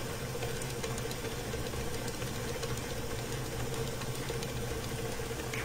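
Stand mixer running steadily with its paddle attachment, creaming butter and sweetener: an even motor hum.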